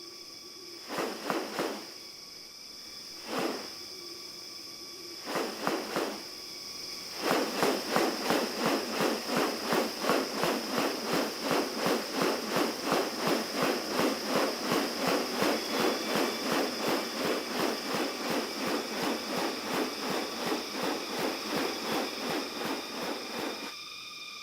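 Rainforest ambience with a steady, high insect drone. A few short bursts come in the first seconds, then a fast, even pulsing of about two to three beats a second sets in and runs for some sixteen seconds before stopping.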